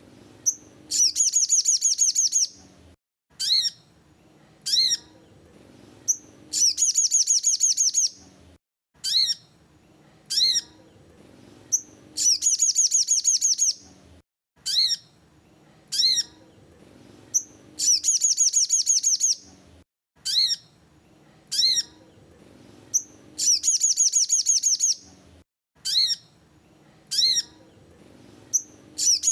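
Sogon (crested jay) song: a few short, sharp, high notes followed by a rapid buzzing trill of about a second and a half. The phrase repeats about every five and a half seconds, a recording meant as a lure to draw a quiet sogon into singing.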